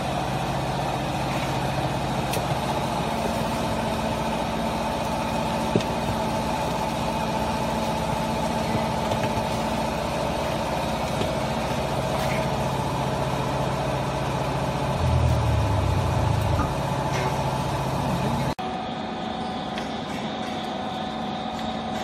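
Vertical waste baler's hydraulic power unit, an electric motor and pump, running with a steady hum. Past the middle it briefly gets louder and lower for about two seconds. Near the end the hum cuts off abruptly to a quieter, thinner one.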